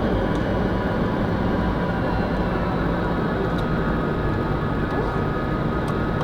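Steady jet noise of a Tu-154M airliner in flight: its three rear-mounted Soloviev D-30KU-154 turbofans and the rush of air, an even roar with a few faint steady whines above it.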